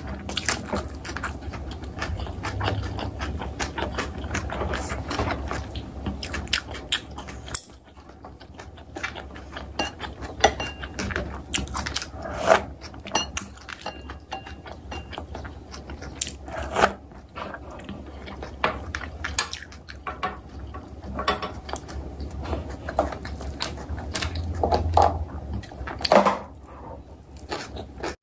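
Close-miked eating of ramyeon noodles and kimchi: chewing and mouth sounds, with chopsticks and a wooden spoon clicking against ceramic bowls. A few sharper clinks stand out, over a steady low hum.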